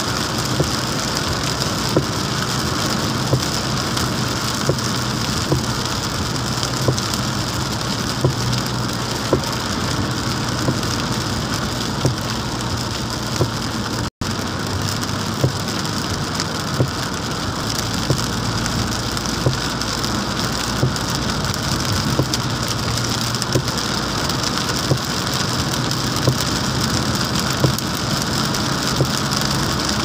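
Rain beating on a moving car on a wet road, over a steady low engine and tyre hum. Short clicks come through about every second or two.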